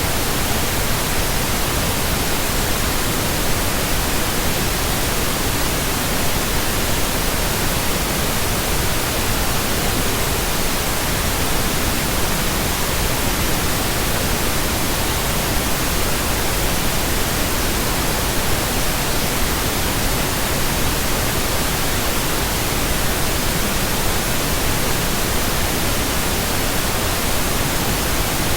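Generated pink noise: a steady, even hiss that does not change.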